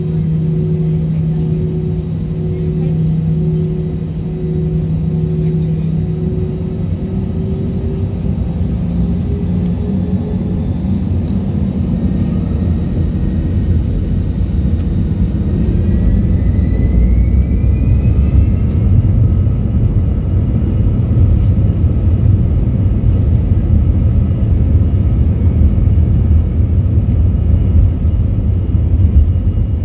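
Airbus A320 engines heard from the cabin over the wing, spooling up for takeoff: a steady low hum at first, then a rising whine about halfway through as thrust comes up. After that a louder, steady engine sound and runway rumble of the takeoff roll.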